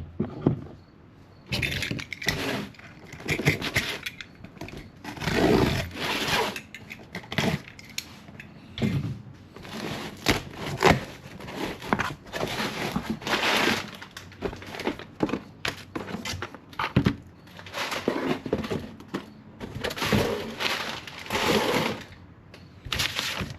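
Packaging being handled and torn open: irregular crackling, scraping and rustling of a box and its wrapping, in short bursts with brief pauses between.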